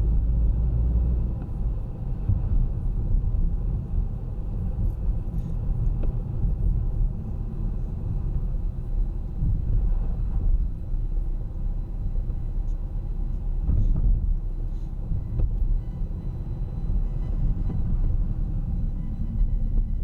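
A car's engine and tyres on the road while driving: a steady low rumble that rises and falls a little, with no sharp events.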